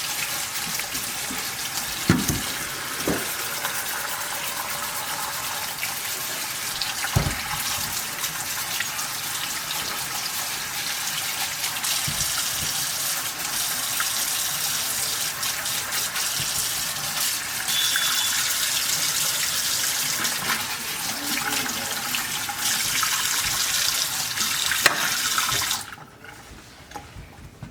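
Tap water running steadily into a sink, with a few soft knocks in the first seconds; the water stops suddenly near the end.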